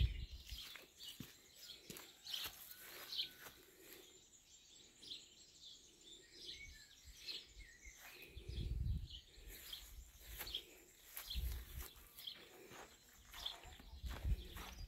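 Small birds chirping here and there, short high calls over a quiet background, with three brief low rumbles in the second half.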